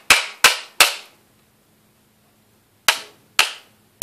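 Sharp, hard knocks of something striking an iPhone during a display-breaking test. Three come about a third of a second apart, then a pause, then two more near the end, each with a short ringing decay.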